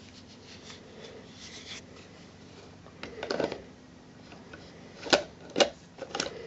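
A pistol and its plastic holster being handled: a brief rub about three seconds in, then three sharp clicks in quick succession near the end.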